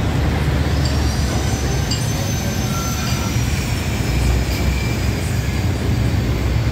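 Steady low rumble of a motor scooter and heavy traffic on a wet road, riding slowly beside a container semi-trailer truck. A thin high squeal is drawn out over about four seconds in the middle.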